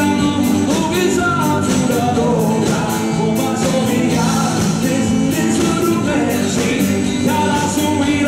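Live music with singers performing into microphones over a steady drum beat.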